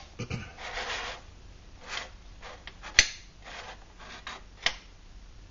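Leather-gloved hand handling a stainless steel folding stove and pot stand: rubbing and scraping, with a sharp click about three seconds in and a smaller one near the end.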